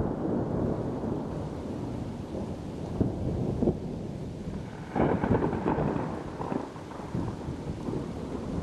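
Thunderstorm: low rumbling thunder over steady rain, with louder rolls about three and five seconds in.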